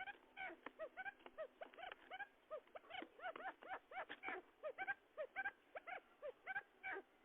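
Wild forest quail calling in a rapid, dense series of short arched chirps, several birds overlapping at roughly four to six calls a second: a quail lure call for drawing in wild quail.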